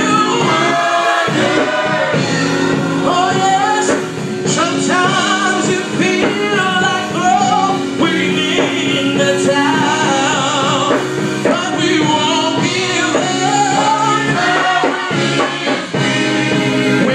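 Gospel choir singing, with held chords underneath and a higher voice sliding and wavering above them.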